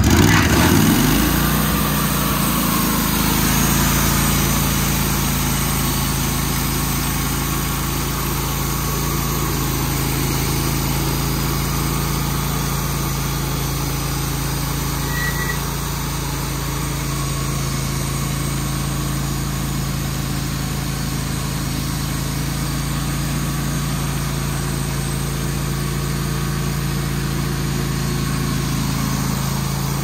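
The air-cooled gas engine of a Wood-Mizer portable band sawmill, just started: it revs up to speed in the first second or two, then runs steadily at that speed.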